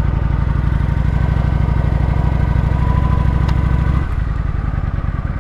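Kawasaki Vulcan 900's V-twin engine on its stock exhaust running under way, with a steady low pulsing beat. About four seconds in the engine note drops and turns quieter.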